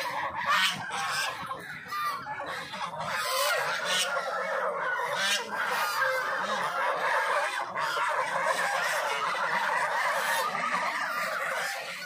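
A flock of white domestic geese honking, many calls overlapping without pause.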